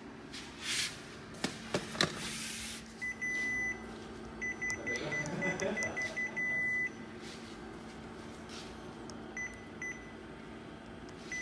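Kyocera TASKalfa 3212i copier's touch-panel key beeps as maintenance-mode codes are keyed in: one held beep, then a quick run of short beeps ending in a longer tone, then a few single beeps. A few clicks come in the first two seconds, over a steady low hum.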